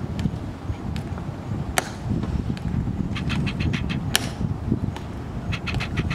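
Soldiers' shoes stepping on a stone plaza while marching, heard as a few sharp clicks, two of them louder, about two and four seconds in. Short runs of rapid ticking sit over a low, fluctuating rumble.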